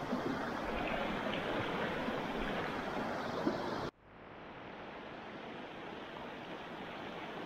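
Small stream running, a steady rush of flowing water. It cuts off abruptly about four seconds in and comes back quieter and duller, slowly building again.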